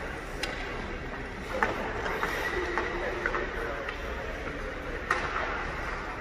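Ice rink hum with a series of sharp clacks of hockey sticks and pucks on ice and goalie pads, the loudest about a second and a half in and again near the end.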